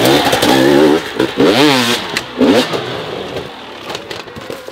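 Hard enduro dirt bike engine revving in short, sharp blips as the bike passes close by, then dropping away quieter over the last couple of seconds.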